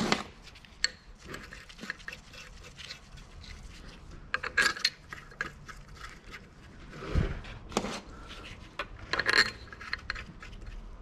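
Steel bolts clinking and tapping against an Eaton 13-speed transmission housing and its cover plates as they are handled and started by hand: scattered small metallic clicks, with a few louder clattering clusters.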